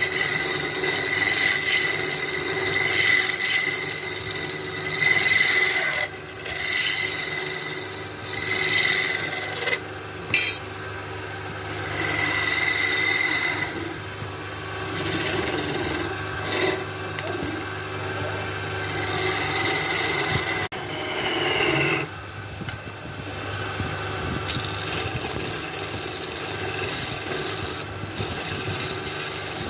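Continuous abrasive scraping on wood as a tool works the surface, rising and falling in strength, with a steady low hum underneath.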